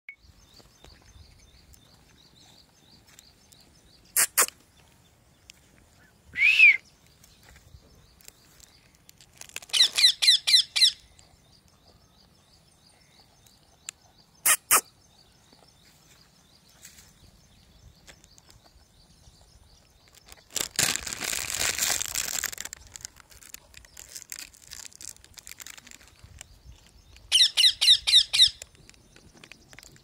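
A parakeet calling: two runs of rapid, shrill repeated screeches, about six in quick succession each, and a single falling call before the first run. Between the calls come two sharp clicks and a two-second burst of noise.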